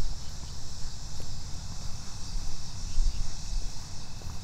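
Steady high chorus of crickets and other evening insects, with a constant low rumble beneath it.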